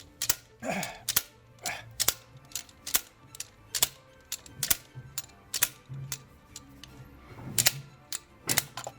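Sharp clicks about two a second from a ratchet wrench cranking a homemade puller on a seized piezo injector in a diesel R engine's cylinder head.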